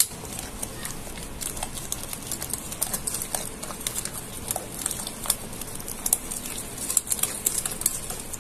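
A small wire whisk beating thick hung curd and powdered sugar in a bowl: a continuous run of quick, irregular clicks and scrapes as the tines strike and drag against the bowl.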